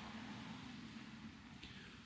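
Quiet room tone: a faint steady hiss with a low hum, and one faint tick about one and a half seconds in.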